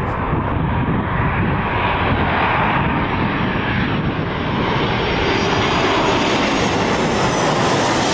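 Twin-engine widebody jet airliner passing low overhead on approach with gear down: a steady, loud jet engine noise that grows brighter as it comes closer, with a faint high whine near the end.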